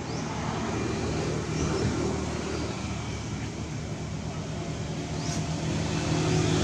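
A motor vehicle engine running steadily, getting louder near the end, with a few faint high chirps over it.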